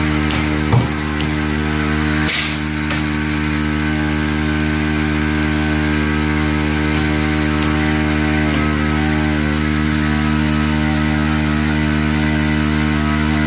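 Small engine of a motorized sprayer running steadily at constant speed while the goats are sprayed with chemical. There is a short knock about a second in and a brief hiss a little later.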